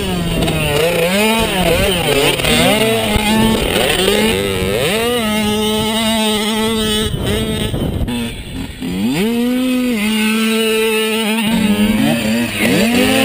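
Small dirt bike engine under hard riding, revving up and holding, then easing off and climbing again several times as the throttle is worked through the corners.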